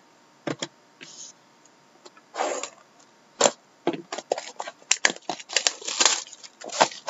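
A sealed trading-card box being unwrapped and opened by hand: plastic wrap crinkling and tearing, with cardboard snapping and rubbing. After a couple of single clicks it becomes a quick run of crackles and rustles about two and a half seconds in, busiest in the second half.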